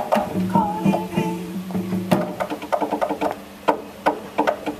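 Small acoustic band of violins, double bass and a hand-held drum playing live. A violin melody over a held bass note comes first, then a quick run of drum strikes as the piece draws to a close.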